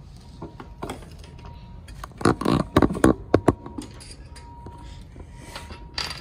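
A quick run of sharp clicks and knocks, lasting about a second and a half a couple of seconds in, from small plastic figure accessories and packaging being handled over a foam-lined box; one more knock near the end.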